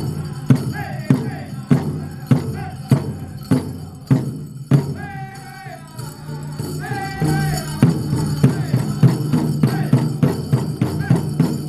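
Powwow drum and singers: a big drum struck in a steady beat under high group singing. Near the middle the drumbeat breaks off for a couple of seconds while the voices carry on, then it comes back quicker.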